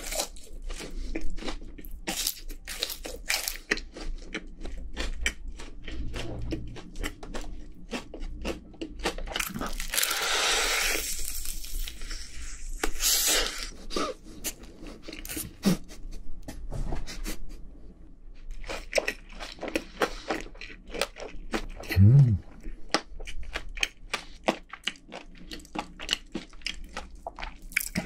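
Close-miked crunching and chewing of crispy Honey Combo fried chicken, with many sharp crackles from the coating. There are longer rustling stretches around ten and thirteen seconds in, and a brief low hum from the eater about 22 seconds in, the loudest moment.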